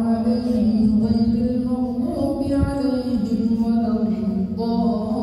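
Imam chanting the Quran aloud during maghrib prayer: one voice in long, held melodic notes that step to a new pitch about two seconds in and again about a second later.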